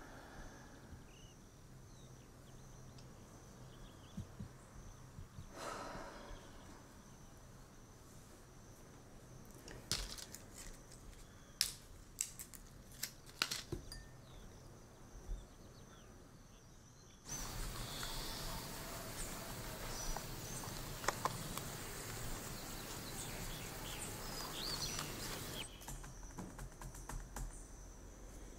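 Quiet ambience with a steady high insect trill, broken by a few sharp clicks about ten to fourteen seconds in. Then a sudden stretch of louder hiss-like noise lasts about eight seconds and cuts off, and near the end fingers tap lightly on a laptop keyboard.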